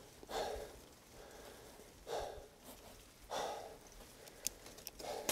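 A cyclist breathing hard and rhythmically, with a heavy exhalation about every second and a quarter, from the effort of pedalling up a steep climb. A few sharp clicks near the end.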